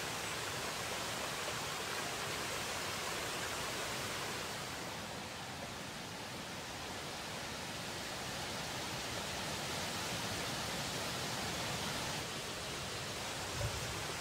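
Steady rush of a shallow stream running over stones, with one brief soft thump near the end.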